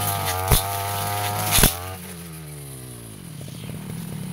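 Brush cutter engine running at full throttle while cutting, with two sharp knocks as the blade strikes woody stems. About halfway through the throttle is released, and the engine note falls steadily and settles into a pulsing idle.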